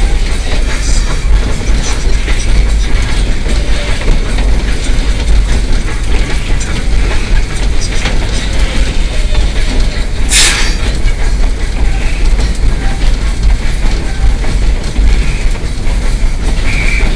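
Inside the cab of narrow-gauge steam locomotive No. 190 under way: a loud, steady rumble and clatter of the engine and its wheels on the rails, with one short, sharp burst of noise about ten seconds in.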